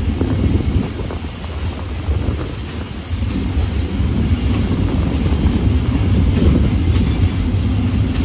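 Container freight train rolling past at close range, its wagons' wheels running over the rails in a loud, steady rumble.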